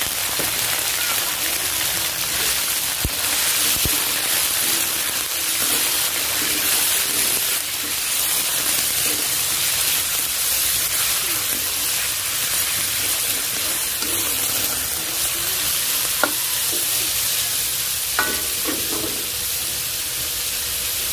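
Raw beef pieces sizzling in hot oil in an aluminium wok as they start to sear, stirred with a nylon spatula that scrapes and knocks against the pan now and then.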